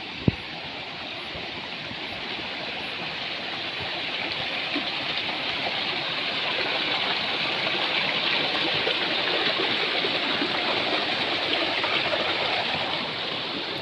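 Rushing stream water, a steady wash that grows louder toward the middle and eases off near the end, with one sharp click just after the start.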